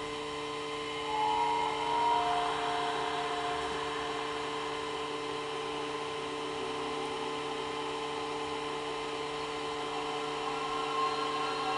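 A steady whining hum from the running projector, with a few faint eerie tones about a second or two in. Near the end, a soft choir-like chord from the Halloween ghost effect's soundtrack starts, played through the projector's built-in speaker.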